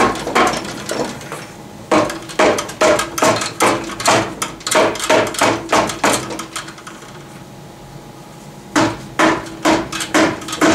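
Orange dead-blow hammer striking the aluminium case of a Subaru Lineartronic TR690 CVT in quick runs of sharp blows, about three a second. There is a pause of a couple of seconds before a last short run near the end. The blows are knocking the bell housing loose from the case once its bolts are out.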